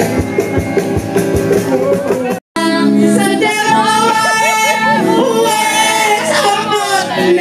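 Music with a steady beat, which drops out for a split second about two and a half seconds in. It comes back with a singing voice carrying the melody.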